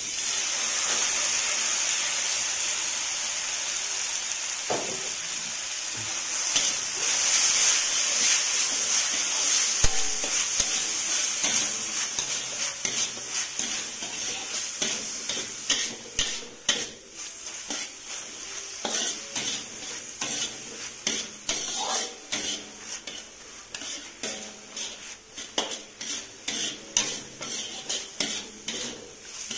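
Chopped chillies, tomato, onion and spring onion sizzling loudly in hot oil in a wok, with a metal spatula scraping and clicking against the pan as they are stir-fried. The sizzle is strongest for the first dozen seconds, then dies down, leaving mostly the spatula's rapid scrapes and taps.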